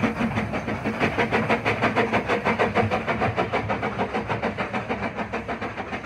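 Narrow gauge steam locomotive chuffing as it pulls away with a carriage: quick, even exhaust beats with steam hiss, growing fainter as it moves off.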